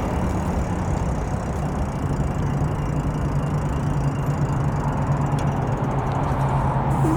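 A vehicle engine running steadily under a constant wash of road-traffic noise, with a steady low hum that settles in a couple of seconds in.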